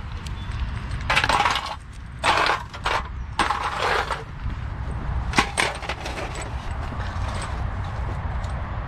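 Empty aluminium beer cans and metal CO2 cartridges clattering in a plastic tub as litter is picked up and dropped in. The clatter comes in several short bursts in the first six seconds, over a steady low rumble.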